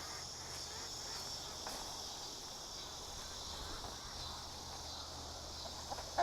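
Faint, steady high-pitched insect chorus. A few short clucks from hens begin near the end.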